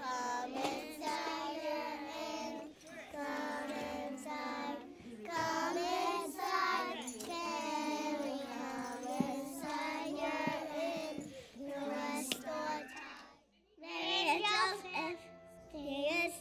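A choir of young children singing a song together. The singing stops abruptly near the end, and a young girl's voice speaks briefly after it.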